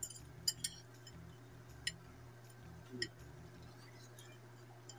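A few faint, sharp clicks of metal forks and spoons against plates and bowls during eating, over a steady low hum.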